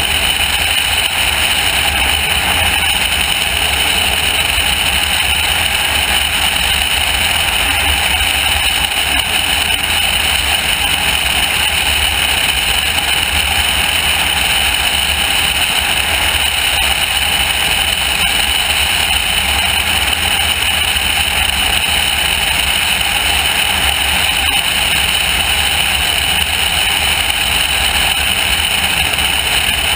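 Single-engine light plane climbing out just after takeoff: its piston engine running steadily under power, mixed with loud wind rushing over the outside-mounted camera.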